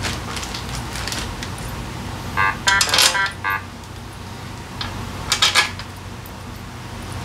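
Metal hand tools clinking and rattling together as they are handled: a run of ringing clinks about two and a half seconds in, and a shorter run about five seconds in.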